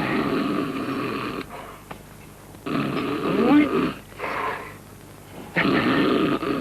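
A person snoring loudly: three long rasping snores, each a little over a second long, with a short snore between the second and third. A whistling wheeze rises and falls in the middle of the second snore.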